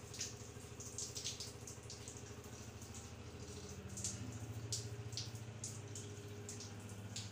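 Handheld shower head spraying water onto hair and skin, with an irregular patter of splashes and drips over a steady low hum.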